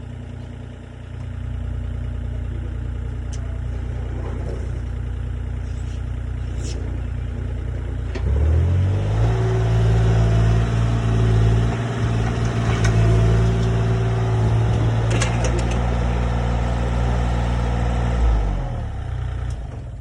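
Engine running steadily, then revving up about eight seconds in and holding there, and dropping back to a lower speed near the end, with a few metallic clicks and knocks over it.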